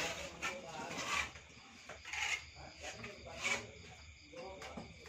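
Irregular short scrapes and knocks of hand work against a brick wall, several strokes roughly a second apart.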